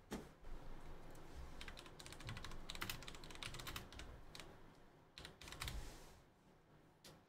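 Typing on a computer keyboard: quick runs of faint key clicks, busiest in the middle, with a shorter burst about five to six seconds in.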